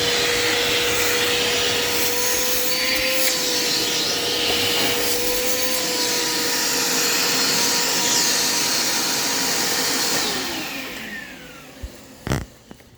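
Dirt Devil Quick Power vacuum cleaner running steadily with a constant motor whine. About ten seconds in it is switched off and its motor winds down, falling in pitch. A couple of knocks follow near the end.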